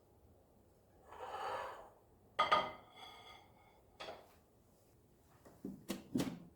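Dishes and kitchenware being handled: a short scrape or slide, then a sharp clink that rings briefly, followed by a tap and a few light knocks near the end.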